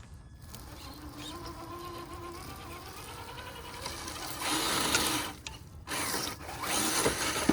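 Traxxas TRX-6 6x6 RC crawler's electric motor and geared drivetrain whining at crawling speed in low range with the diffs locked, the whine rising slightly in pitch. Louder noisy stretches around the middle and near the end as the dirt-clogged tires scrabble for grip.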